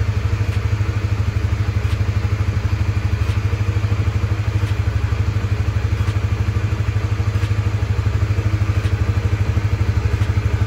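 Honda CB150R's single-cylinder engine idling with a steady, even pulse.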